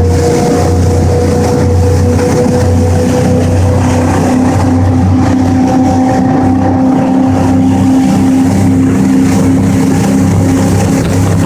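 A 31 ft Tiara Open sportfishing boat's engines running hard at speed, a steady drone whose pitch creeps slightly upward, over a steady hiss of rushing air and water.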